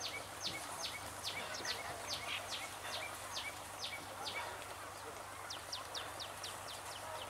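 A bird calling over and over: short high notes that fall in pitch, about two a second, then a quicker run of shorter notes about five seconds in.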